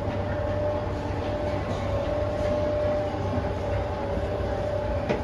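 An escalator running with a steady mechanical rumble and low hum under a faint steady tone, with one short click near the end.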